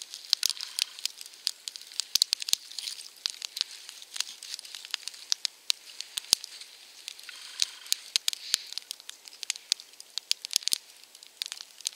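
Campfire of dry spruce twigs crackling, with many sharp irregular snaps and pops over a soft hiss.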